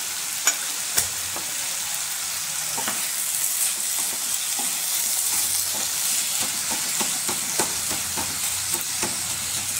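Grated beetroot and carrot sizzling in a pan while a wooden spatula stirs and scrapes through them. The spatula knocks against the pan with sharp clicks about half a second and a second in.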